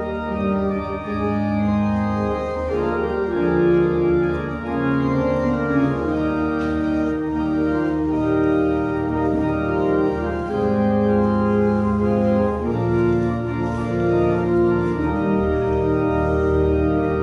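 Pipe organ playing sustained chords that change every second or so over a moving bass line.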